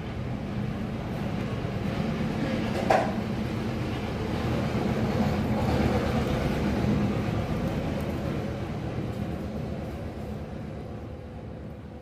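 A low engine rumble, like a passing motor vehicle, that slowly swells and then fades, with one brief click about three seconds in.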